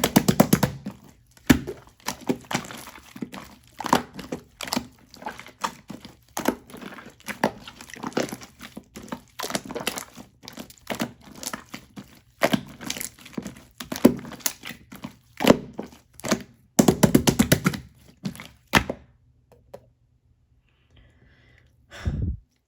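Crisp croffle being bitten and chewed: irregular crunching and crackling, with dense flurries at the start and again late on. It stops about three quarters of the way through, leaving a single thump near the end.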